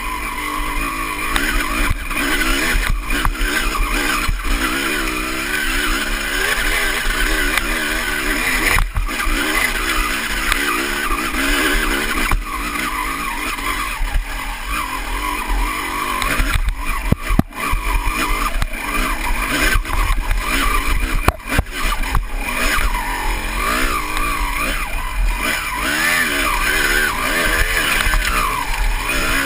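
Honda CR250's two-stroke single-cylinder engine revving up and down under load on a steep, rocky hill climb. The sound dips briefly twice, around 17 and 21 seconds in.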